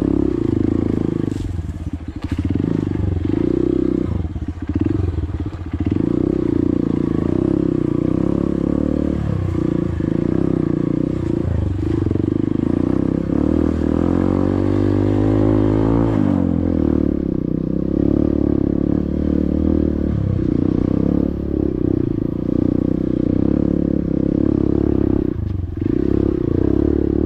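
Honda CRF150L dirt bike's single-cylinder four-stroke engine running on an off-road trail ride, its pitch rising and falling with the throttle. About halfway through, the revs climb steadily for a few seconds, then drop sharply.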